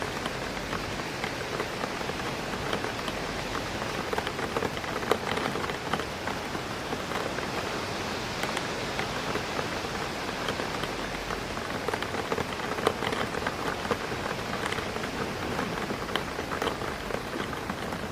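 Rain hitting a window pane: a dense, steady patter of many small drop ticks over a continuous hiss, with a few louder drops standing out now and then.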